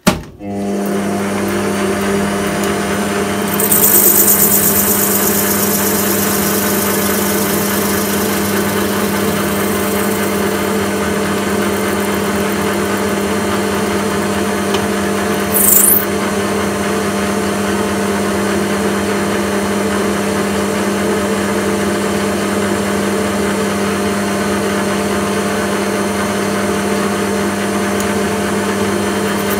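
Bernardo conventional metal lathe starting up and running steadily with an even motor and gearbox hum, while facing an acrylic (Plexiglas) tube. A high hiss comes in for a few seconds near the start, and a brief high squeal dropping in pitch comes about halfway.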